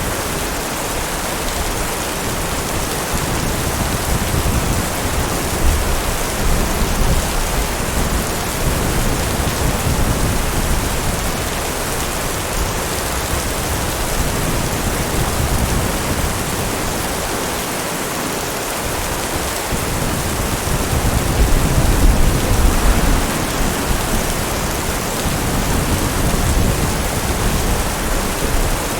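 Heavy rain falling steadily, with low rolls of distant thunder swelling and fading. The loudest roll comes about three-quarters of the way through.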